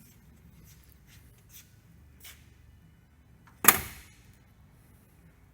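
A car door of the 1967 Ford Fairlane 500 shutting once with a single loud thump about three and a half seconds in, after a few faint clicks.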